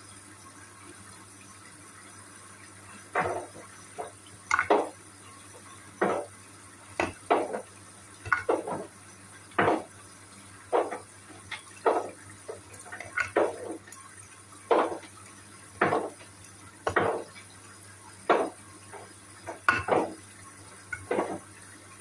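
Hoover front-loading washing machine tumbling its drum during the wash: wet laundry and water slosh and splash against the door and drum in irregular hits, about one a second, starting a few seconds in.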